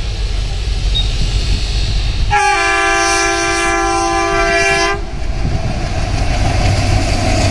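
Indian Railways ALCO diesel locomotive sounding its horn in one long blast of about two and a half seconds, starting a couple of seconds in, over the steady low rumble of the approaching train.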